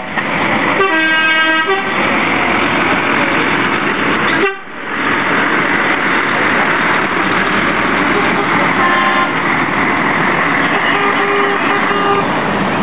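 Diesel truck tractor unit pulling away close by, its engine running loud and steady, with truck air-horn blasts over it: one of about a second near the start and shorter ones later.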